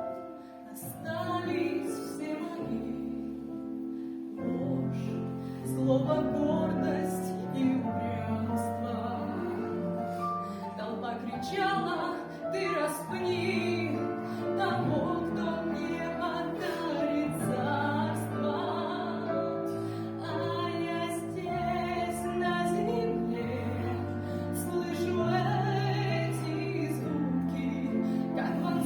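A Christian song: singing over an instrumental accompaniment, with long held notes.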